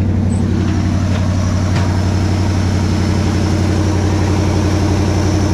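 1954 Chevy 3100 pickup's inline-six engine idling steadily, with a faint high whine running alongside.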